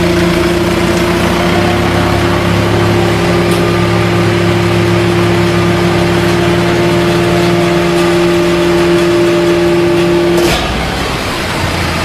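Horizontal paper and cardboard baler running during automatic feeding and baling, a loud steady machine hum. About ten and a half seconds in the hum cuts off with a click, leaving a rougher, noisier sound.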